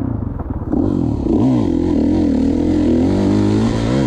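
2016 Kawasaki KX450's four-stroke single-cylinder engine revving up and down under changing throttle while riding, with a dip in revs and a pickup about a second and a half in. A steady hiss comes in just under a second in.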